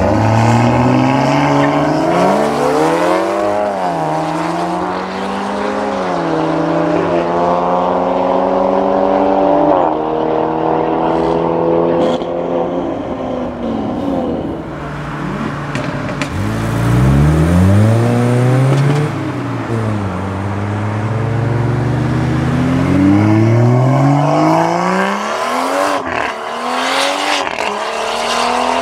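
BMW M135i xDrive's tuned N55 turbocharged straight-six with a TTE550 big turbo, accelerating hard at full throttle. It launches and climbs in pitch through the gears, dropping sharply at each upshift, fades as the car runs away, and then goes through a second hard acceleration with quick rises and drops between gears.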